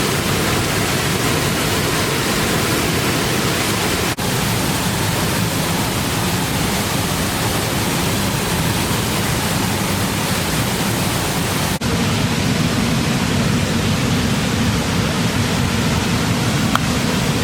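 Waterfall rushing: a steady, dense hiss of falling water, broken by two momentary dropouts about four and twelve seconds in. After the second one the sound turns deeper and duller.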